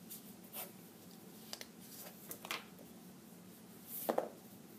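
Pencil drawing lines on paper: a few short, faint scratching strokes, the loudest about four seconds in.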